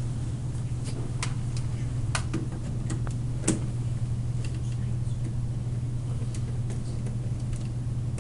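Steady low hum with scattered small clicks and taps of a screwdriver and wire being worked into the screw terminals of a PLC panel, the clicks mostly in the first half.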